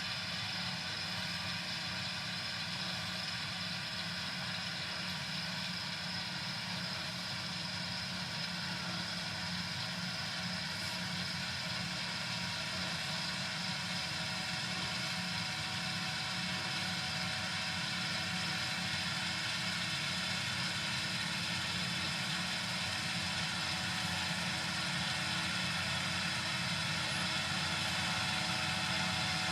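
Gleaner S77 combine running steadily during wheat harvest: a constant machine drone with several fixed whining tones over a steady hiss, growing slightly louder over time.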